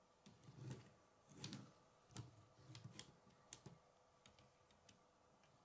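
Faint, irregular clicking and soft knocking of plastic K'nex rods and connectors being handled and fitted, about a dozen light clicks in all, the loudest in the first two seconds.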